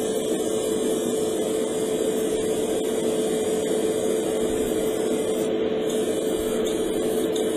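Spray booth extractor fan running steadily: an even airy rush with a constant mid-pitched hum.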